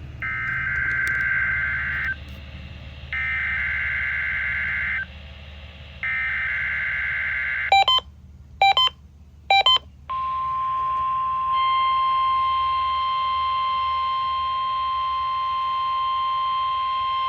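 NOAA Weather Radio required weekly test alert: three raspy two-tone digital data bursts of about two seconds each (the SAME header), then three short beeps, then a long steady high alert tone. More overtones join the tone partway through.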